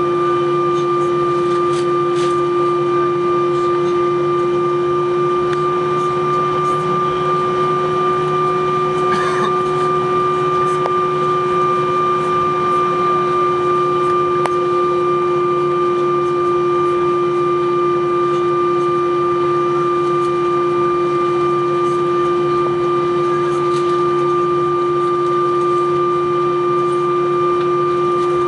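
Airbus A321 cabin noise during taxi: the engines at idle and the air conditioning give a steady hum with a few fixed whining tones, unchanging in level.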